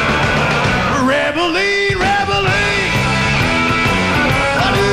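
Live rock and roll band playing an instrumental passage, an electric guitar lead with bending notes over bass and drums. The low end drops out for under a second about one to two seconds in.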